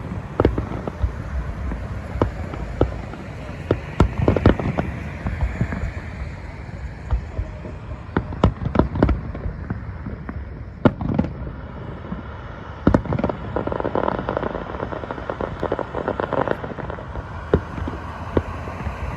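Aerial fireworks display: sharp bangs and reports going off at irregular intervals, several spaced close together, over a steady background rumble.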